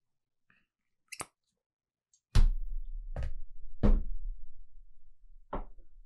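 Four dull knocks, each with a low thud, the first and third the loudest, following a faint click about a second in.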